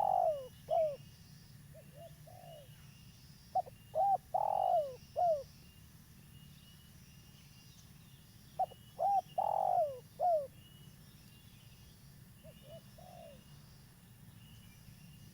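Spotted dove (tekukur) cooing: a phrase of several short coos and one longer coo, repeated about every four to five seconds. Faint high chirping of small birds runs behind it.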